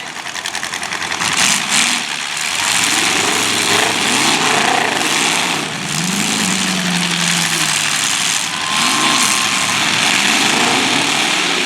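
Demolition derby car engines running and being revved, their pitch rising and falling again and again over a loud, steady wash of noise.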